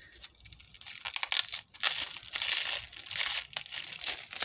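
Plastic bubble wrap crinkling and crackling in irregular bursts as a hand grips and lifts a wrapped item, starting about a second in.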